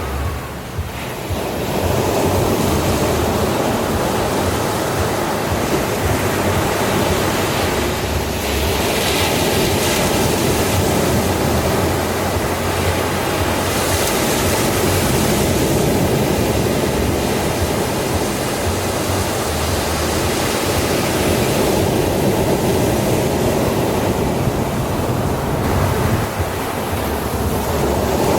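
Ocean waves breaking and washing ashore in a steady, continuous wash of surf. It swells up after the first second or so, with brighter breaking surges about 9 and 14 seconds in.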